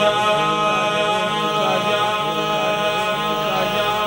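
Unaccompanied devotional chanting of a naat refrain: voices holding long, wavering notes, with no instruments.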